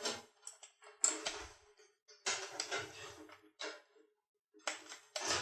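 Power-supply cable being handled and pulled through a PC tower's metal case: several short bursts of rustling wires with clicks of plastic connectors and sheet metal, about a second apart.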